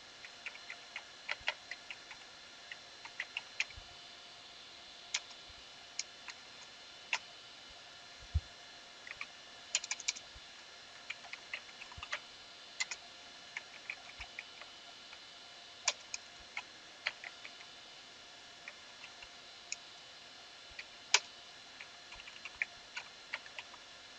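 Computer keyboard being typed on in irregular runs of keystroke clicks, some single and some in quick clusters, over a faint steady electrical hum.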